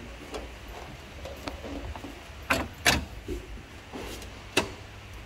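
Hood prop rod of a car being handled and snapped back into its clip: about four sharp clicks and knocks, the loudest about three seconds in, over a steady low hum.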